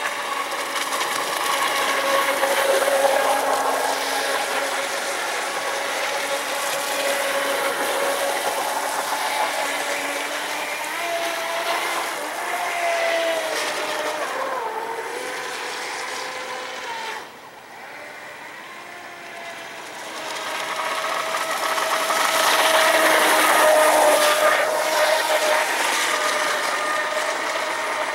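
Miss Geico radio-controlled speed boat running fast across the water: a high motor whine over the hiss of the hull and spray, its pitch sliding up and down with throttle and turns. The sound drops off abruptly a little past halfway and builds back to its loudest near the end.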